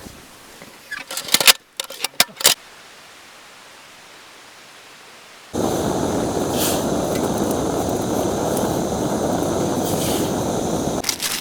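A few sharp clicks and knocks, then a steady rushing hiss that starts abruptly about five and a half seconds in and holds at an even level.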